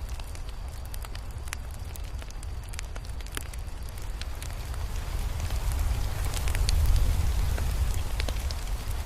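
Crackling wood fire: scattered sharp pops and snaps over a low rumble that swells louder about two-thirds of the way through.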